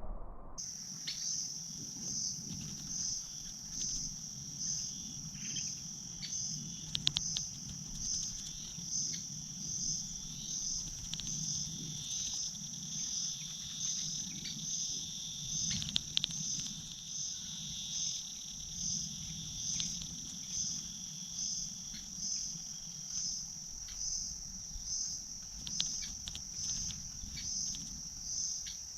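Crickets chirping in a steady high trill that pulses evenly a little over once a second, with scattered faint clicks.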